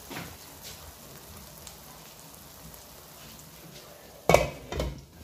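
Shakshuka simmering in a covered frying pan with a faint, steady sizzle. Just over four seconds in, the glass lid is handled with two loud clanks about half a second apart.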